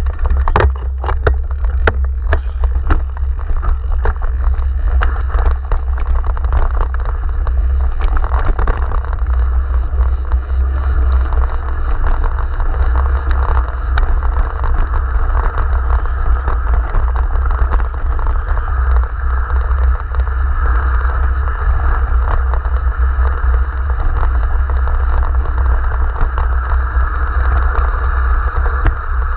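Wind buffeting the microphone as a mountain bike descends a rocky trail, over a steady crunch of tyres on gravel. Sharp clicks and rattles of the bike over rocks come thickest in the first eight or nine seconds and grow sparser after.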